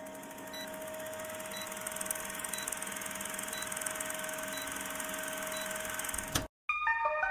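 Old film projector sound effect: a steady mechanical whir and hiss with a faint short beep about once a second, counting down. It stops with a click a little after six seconds, and music starts right after.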